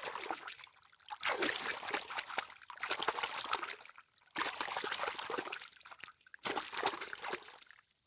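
Water splashing and trickling, in several stretches broken by short near-silent gaps, each stretch starting abruptly.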